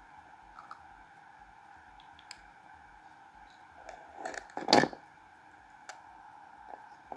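Low steady hum of a laptop recording with a few faint clicks. About four seconds in comes a short, loud clatter of knocks and rustling, the loudest sound here.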